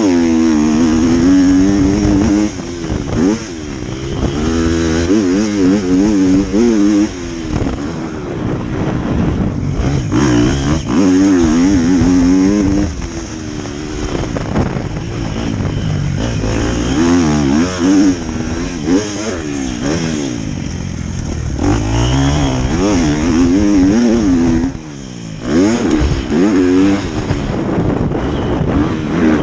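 Motocross bike engine revving hard and easing off again and again around the track. Its pitch climbs as it pulls and drops each time the throttle closes for a corner or jump, under a steady hiss of wind on the microphone.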